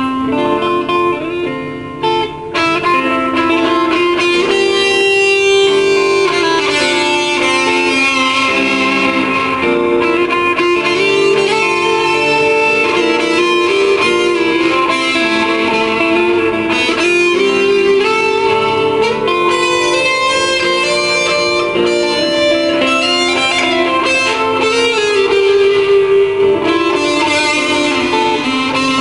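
PRS S2 electric guitar with Bare Knuckles pickups, played through a PRS amplifier and Altec speaker with TC Electronic reverb and delay. It plays a continuous, freely improvised run of melodic lines, with a brief break about two seconds in.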